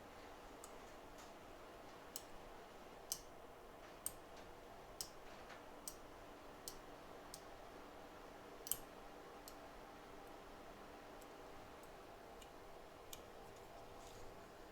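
Faint, sharp small clicks, about one a second for several seconds, then a couple more near the end, over a low steady hum from the workbench.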